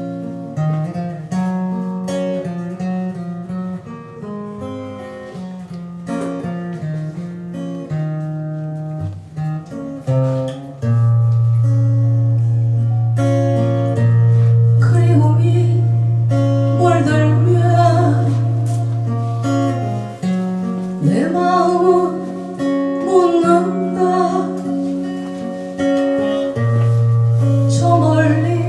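Live acoustic guitar music: picked and strummed chords over deep held bass notes, with a wavering melody line joining about halfway through.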